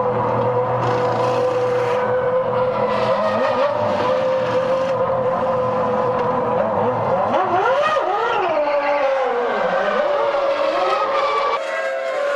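Formula One cars' 3.0-litre V10 engines running at high revs, a steady high note at first. Partway through, several engines sweep up and down in pitch through gear changes as cars pass. Near the end the sound switches abruptly to another engine note.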